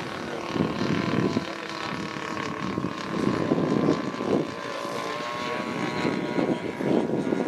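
Engines and propellers of a large radio-controlled scale model of a Handley Page H.P.42 four-engined biplane airliner, running as it taxis on grass. There is a steady whine, with louder rushing surges every couple of seconds.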